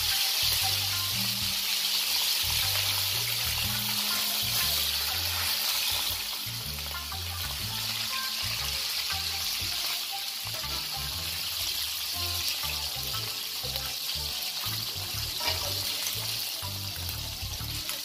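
Two whole fish sizzling in hot oil in a frying pan as they are fried ahead of being stewed. The sizzle is a steady hiss that eases slightly about six seconds in, with background music under it.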